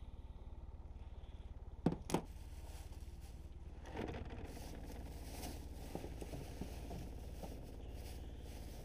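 Two sharp knocks close together about two seconds in, then soft scraping and rustling as fishing line and gear are handled in the boat.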